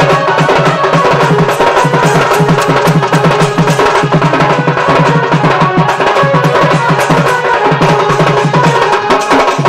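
Sambalpuri folk dance music: a dhol drummed in a fast, repeating rhythm with other percussion, over a held melodic line.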